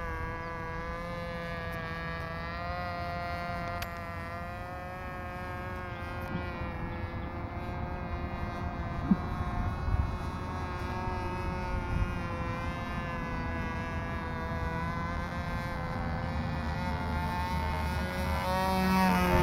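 Model airplane's Cox .049 engine, running on nitro with a glow plug, buzzing steadily at high revs as it turns a 7x3 propeller in flight. The pitch wavers gently, and the buzz grows louder near the end as the plane comes closer.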